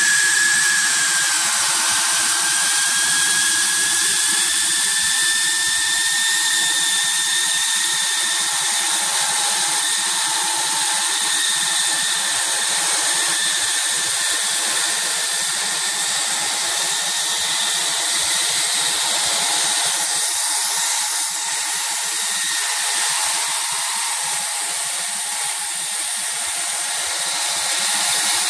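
HIGHTEX S700 hot air welding machine running, sealing a tape over a butt seam: a steady hiss of hot air from the welding nozzle with a high, even whine from the machine.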